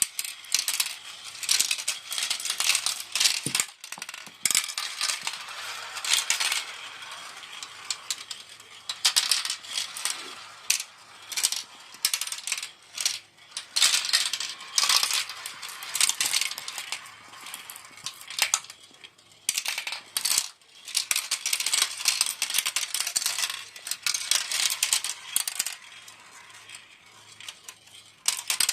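Marbles rolling and clattering through a toy marble run track, a continuous stream of small sharp clicks and rattles as many marbles run down and knock against the track pieces and each other.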